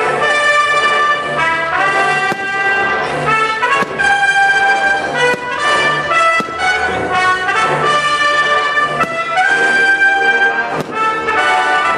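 Brass band playing a tune: held notes that move every second or so over a bass line, with a few sharp hits scattered through.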